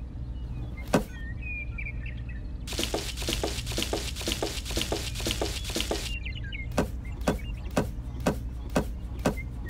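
Clicks and light knocks of small plastic toy watermelons being picked from among artificial leaves and set down. A dense patter of them comes in the middle, then a string of sharper single knocks near the end, over a steady low hum.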